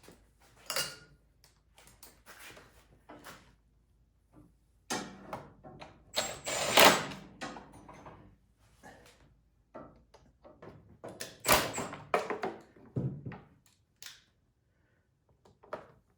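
Irregular metallic knocks and clinks of hand tools and bolts being worked, with a louder clatter about six to seven seconds in and another about eleven and a half seconds in, as a snowblower's fuel tank is bolted back on.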